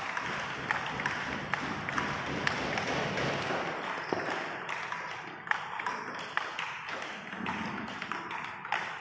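Table tennis balls being hit in rallies on more than one table: a quick, irregular run of sharp taps as the ball strikes rubber paddles and the tabletops.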